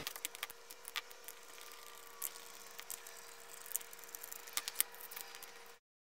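Faint, scattered small clicks and ticks as a screwdriver backs the screws out of a Milwaukee USB power adapter's plastic housing and the housing is handled, over a faint steady hum. It cuts off suddenly near the end.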